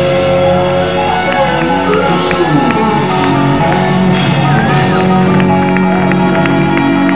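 Live band playing the instrumental end of a blues-rock song, with guitar notes bending in pitch over held chords.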